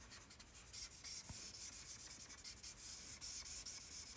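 Faint, scratchy rubbing of a Stampin' Blends alcohol marker tip stroking back and forth across cardstock while colouring. The strokes come quickly and grow a little louder about a second in.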